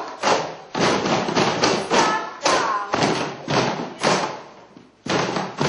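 Group of cajones and homemade tin-can drums beaten together in a steady rhythm, several strokes a second, fading out about five seconds in.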